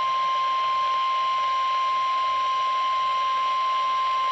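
NOAA Weather Radio warning alarm tone: one steady, high-pitched 1050 Hz tone over a light hiss of radio static, the signal that a warning broadcast is about to follow.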